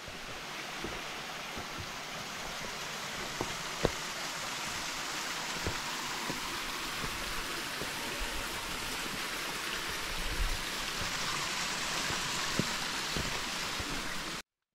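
Mountain stream rushing steadily, with a few light knocks here and there.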